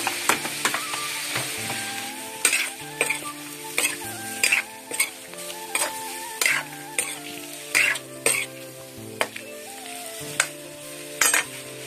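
Fish pieces frying in hot oil in a kadhai, with a steady sizzle. A steel spoon stirs them, scraping and clicking against the pan about once or twice a second.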